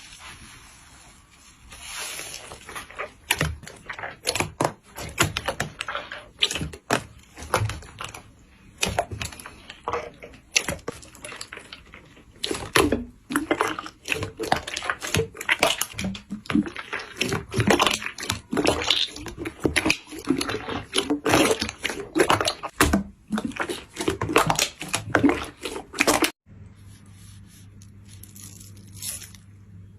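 Slime being squeezed and poked by hand, giving rapid, irregular wet clicks and pops. The clicking stops abruptly about 26 seconds in, leaving a quieter steady low hum with a few more clicks near the end.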